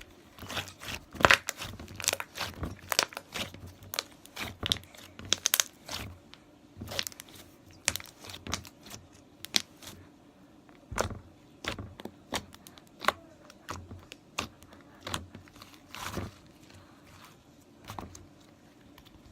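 Slime being squeezed, stretched and poked by hand: a run of irregular sticky pops and crackles, dense for the first several seconds and sparser after.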